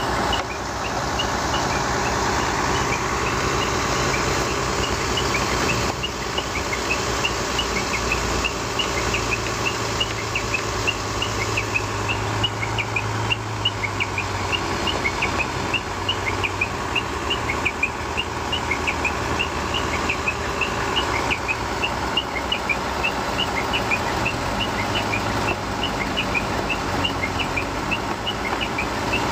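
Transit mixer truck's diesel engine running steadily as the truck backs up to the concrete pump, its low hum swelling for several seconds partway through. Many short high chirps sound throughout.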